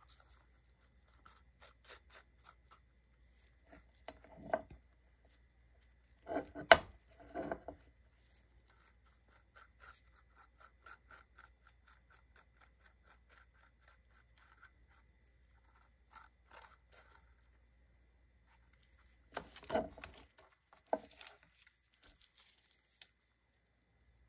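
Quiet handling sounds of a glass candle lid and a waxed paper cup being picked up, turned and set down on a glass craft mat: scattered knocks and clicks, loudest about seven seconds in and again near twenty seconds, with a run of faint rapid ticks in between.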